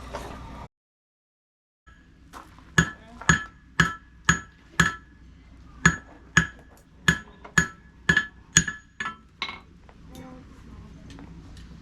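Blacksmith's hammer striking hot iron on an anvil while drawing out a nail: about fifteen ringing blows, roughly two a second, then a few lighter taps.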